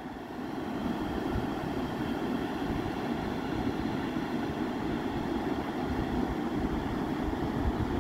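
Floodwater rushing across a roadway: a steady, unbroken rush of turbulent water.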